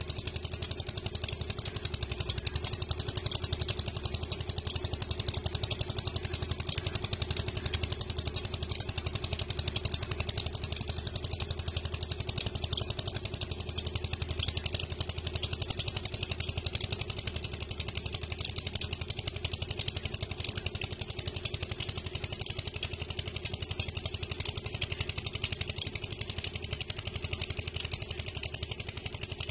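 Massey Ferguson tractor's diesel engine running steadily as it hauls a heavily loaded trolley, an even firing beat that holds the same pace and level throughout.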